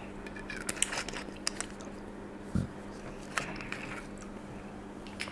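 Small sharp clicks and taps from a glass soda bottle being handled and its cap worked on, with a low thump about two and a half seconds in, over a steady low hum.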